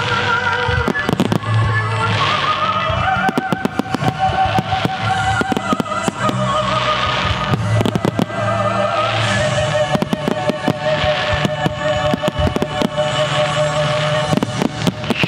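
Aerial fireworks shells bursting in rapid, near-continuous succession, bangs and crackles overlapping, over accompanying music with a held, wavering melody and a low bass.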